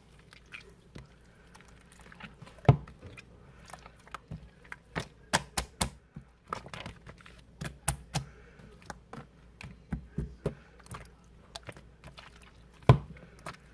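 Irregular small clicks and taps, some in quick runs, with a louder knock about three seconds in and another near the end.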